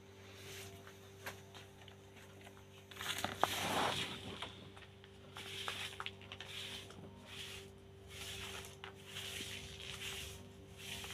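Plastic bags and a snack wrapper rustling and crinkling as a puppy noses and chews through them, in repeated bursts from about three seconds in, with scattered small clicks before that.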